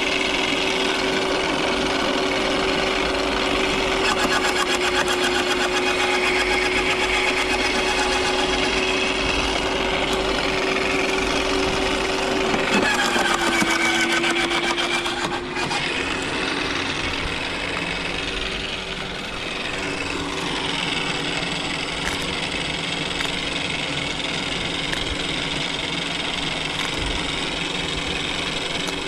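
Small garden branch shredder running steadily. Its pitch sags and it gets louder for a few seconds about halfway through as conifer branches are fed in and chewed up. After that it runs on unloaded.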